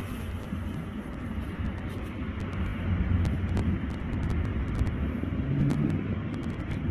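Steady low rumble of outdoor background noise, with faint scattered clicks.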